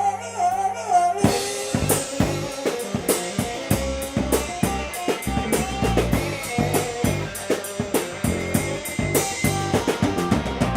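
Band music: sustained notes, then drum kit, bass and melody come in together about a second in and play on with a steady beat.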